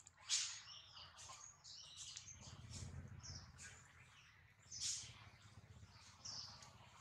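Faint, short high-pitched animal chirps and squeaks, scattered and irregular, the loudest about five seconds in.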